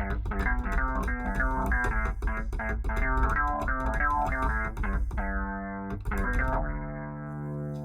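Electra 88 sampled electric piano playing the effects-laden 'Filthy Funk' preset: short, rhythmic funk chords over a deep bass line. About two-thirds of the way through, the rhythm gives way to a few longer held chords.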